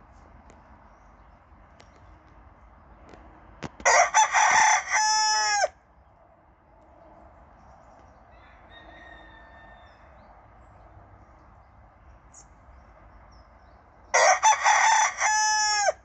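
Silver Spangled Hamburg rooster crowing twice, about ten seconds apart. Each crow lasts under two seconds: a few quick broken notes, then a held note that falls in pitch at its end.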